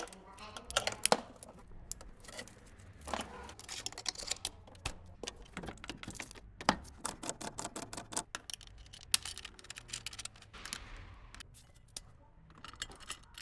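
Irregular metallic clicks and clinks of small parts being handled and fitted while a compressor is assembled by hand.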